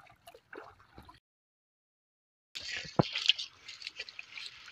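Shallow water splashing and dripping as hands work through a cast net to pick out the catch. Faint splashes at first, then a gap of silence for about a second and a half, then louder trickling and splashing with one sharp splash about three seconds in.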